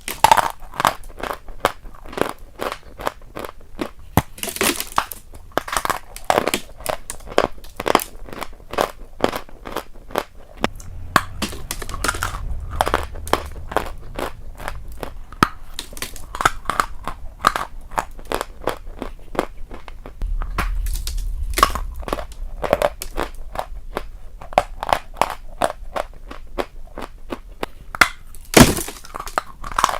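A person chewing crunchy food close to the microphone: a dense, irregular run of crisp crunches and crackles.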